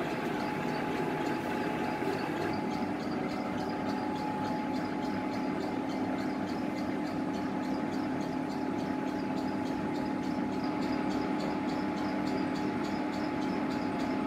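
Pinacho L-1/165 centre lathe running without cutting, its empty three-jaw chuck spinning: a steady mechanical hum with two held tones and a light, fast, even ticking.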